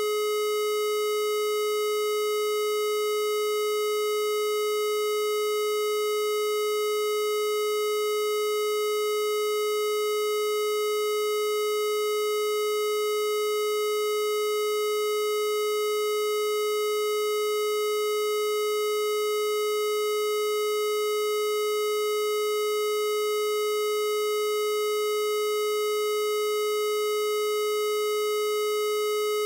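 A steady electronic tone, a generated Rife frequency, held at one unchanging pitch with a string of overtones above it. It starts suddenly out of silence and runs on without any change.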